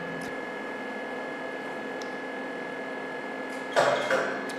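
Steady electrical hum with two fixed tones, from the diode laser unit and room equipment. About a second before the end come two short noisy bursts, under half a second apart, as the laser handpiece goes into action on the nose.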